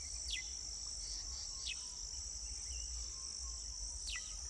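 A steady high-pitched insect chorus, with a bird giving three short calls that slide downward in pitch.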